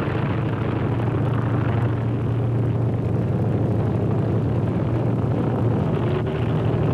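The Spirit of St. Louis's Wright Whirlwind radial engine running steadily at takeoff, a constant low drone under heavy hiss, heard through an early Movietone sound-film recording.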